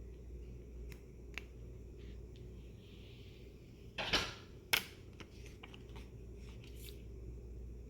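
Handling noise: a few light clicks and ticks, with two louder short snaps a little past the middle, over a low steady hum.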